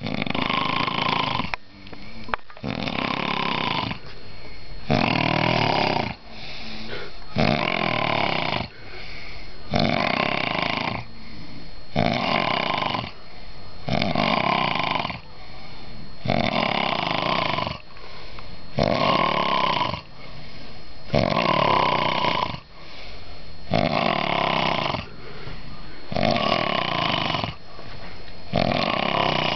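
A man snoring loudly in deep sleep, a heavy snore on nearly every breath, about one every two seconds and hardly pausing between them.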